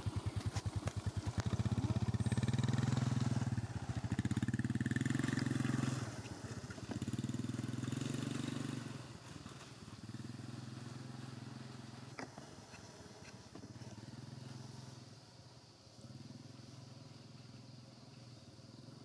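A motorcycle engine running close by, loudest in the first six seconds, then fading away as it moves off.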